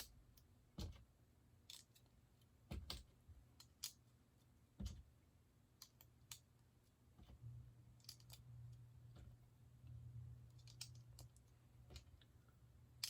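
Faint scattered clicks of plastic Lego pieces being handled and pressed together, about a dozen irregular taps. A faint low hum sets in about halfway through.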